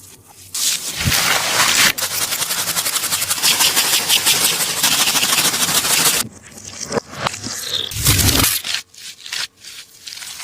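A handmade tape-and-paper taba squishy being squeezed and kneaded, crinkling and crackling densely for about five seconds, then in shorter separate squeezes.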